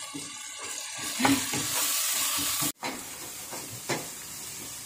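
Onion-tomato masala sizzling in a non-stick pan as a wooden spatula stirs and scrapes through it. The sound breaks off briefly about halfway through.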